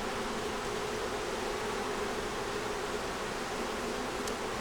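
Steady buzzing of many honey bees around an open nuc hive.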